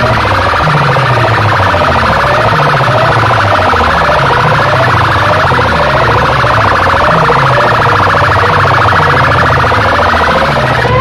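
Stacked horn loudspeakers of a competition sound rig, very loud, playing an electronic siren effect: short rising whoops about one and a half times a second over repeating falling bass sweeps. Near the end a higher run of rising whoops comes in.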